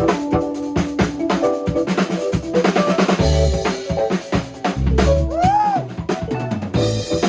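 A drum kit played in a busy groove, with kick drum, snare and rimshots, under sustained instrument notes from the band. About five seconds in, one note bends up and falls back down.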